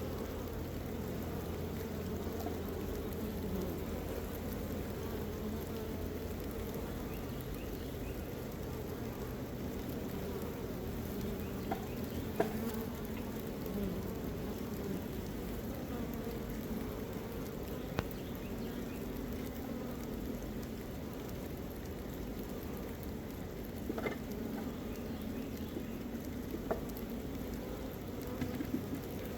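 Many honeybees buzzing steadily, a dense hum with a handful of sharp clicks scattered through.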